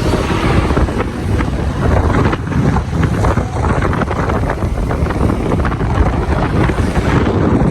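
Wind buffeting the microphone over the rumble of a moving road vehicle.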